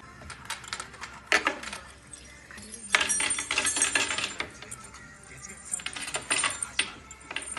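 Small hard objects clinking and rattling in several quick clusters of clatter as an Asian small-clawed otter handles and plays with them.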